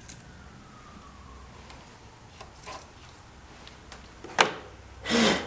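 Small clicks of hands working among parts and wiring in a diesel engine bay, with one sharp click about four seconds in. A short, loud hiss follows near the end. A faint tone slides down in pitch over the first two seconds.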